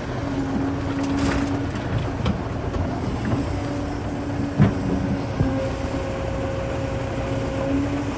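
Heavy machine's diesel engine running steadily with a low hum, with one short knock a little past halfway.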